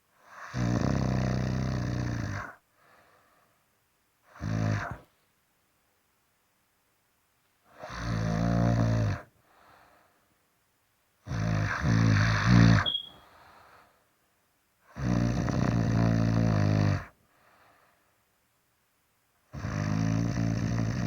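Someone asleep snoring loudly in a steady rhythm: a rough, rumbling snore about every four seconds, five long ones and one short one, with near silence between.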